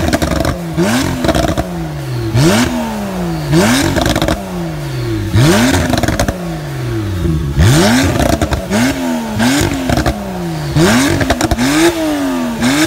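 A Porsche 911's flat-six being blipped repeatedly while parked, about ten quick revs, roughly one a second. Each rev climbs fast and falls back slowly, with exhaust crackles and pops as the revs drop.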